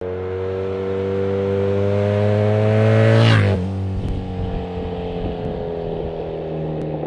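Motorcycle riding toward the camera and passing close by. Its engine note climbs slowly as it nears, is loudest as it passes about a third of the way in, then drops in pitch and carries on more quietly as it rides away.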